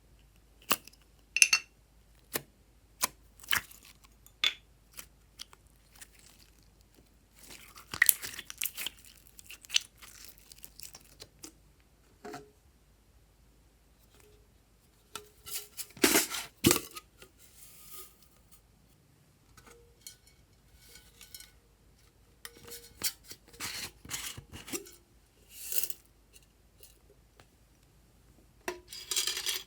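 Glossy slime being worked by hand, stretched and pressed. It makes sharp sticky clicks at first, then scattered bursts of crackling and tearing noises.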